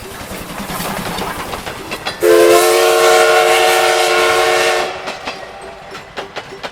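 Train passing: rushing running noise builds, then a train whistle blows one long, steady, many-toned blast for under three seconds and stops abruptly. Sharp clacks of wheels over rail joints follow.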